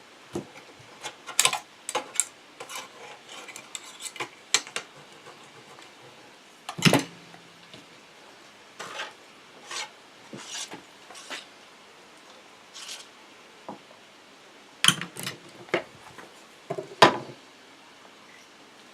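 Metal scraping, rasping and clinking of grill hardware being handled, in irregular short strokes with pauses between them. The loudest knocks come about a second and a half in, about seven seconds in and near the end.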